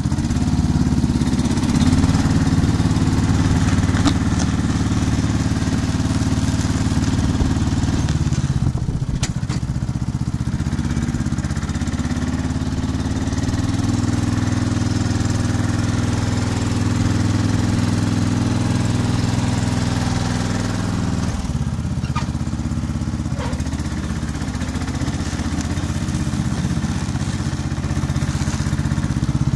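Lawn tractor engine running steadily under load as the tractor pushes a plywood plough blade through snow. The engine note shifts about a third of the way in and again about two-thirds of the way in.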